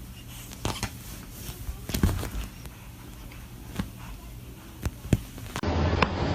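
A dozen or so light taps and knocks at irregular intervals in a quiet room. Near the end a louder, busier sound with repeated clicks takes over abruptly.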